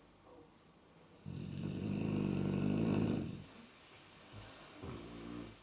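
A sleeping pet snoring: one long, loud snore starting about a second in and lasting about two seconds, then a softer breath near the end.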